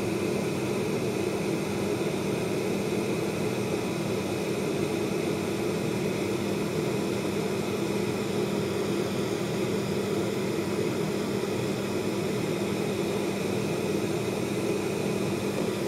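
Steady fan hum: a low, even drone with a hiss over it.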